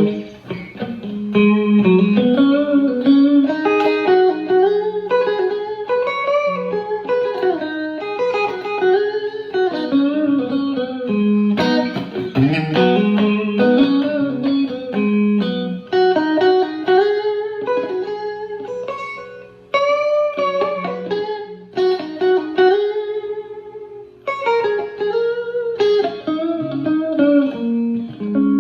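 Home-built electric guitar played through a Fender Blues Junior tube amp with a clean tone and the amp's reverb off. It plays single-note lead lines with string bends.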